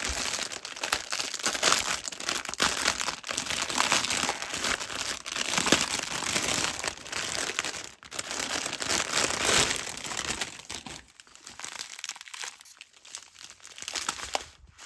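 Crinkling and rustling of a clear plastic bag packed with small zip bags of diamond-painting drills as it is opened and handled. It is continuous and loud for about the first eleven seconds, then quieter and intermittent near the end.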